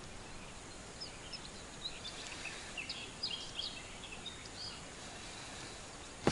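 Small birds chirping: a run of short high chirps from about a second in until near the five-second mark, over a faint steady outdoor hiss.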